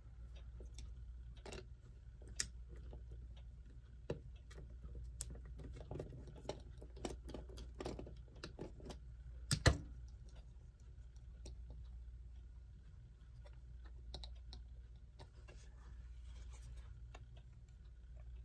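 Light clicks and taps of a small wrench and tools working the nuts off the back of an old electric clock, scattered and irregular, busiest in the middle with one sharper click just under ten seconds in.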